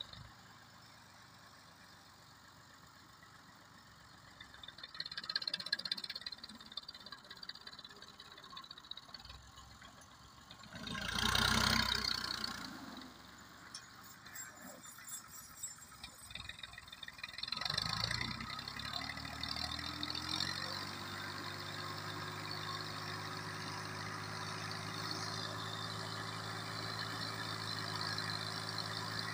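Tractor diesel engine revving up about two-thirds of the way through and then held at a steady high speed as the hydraulic tipper raises the loaded trailer bed. Before that it is fairly quiet, with a few bursts of noise, the loudest a brief rush a little before the middle.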